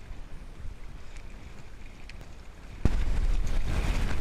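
Light wind noise with the ngalawa outrigger canoe at rest in shallow water, then an abrupt change about three seconds in to loud wind buffeting the microphone as the canoe sails.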